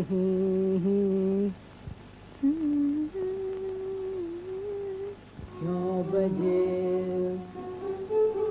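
Humming of the melody of a 1930s Hindi film duet, on an old soundtrack: several long, steady held notes with short breaks between them. A higher note comes in the middle, between lower ones at the start and near the end.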